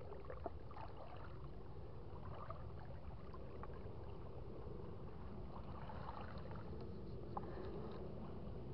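Quiet sloshing of shallow seawater around legs wading through it, with faint small splashes, over a steady low rumble.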